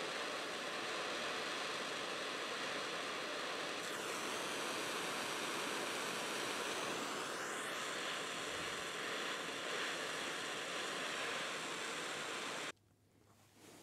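Handheld propane torch hissing steadily as it warms a riveted steel ladle joint for a beeswax finish; the hiss cuts off suddenly near the end.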